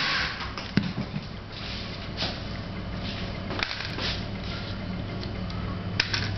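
Walnut shell crushed under the base of a glass bottle, then crackling and clicking as the broken shell is picked apart by hand. Short crackles and small clicks come irregularly over a steady low hum.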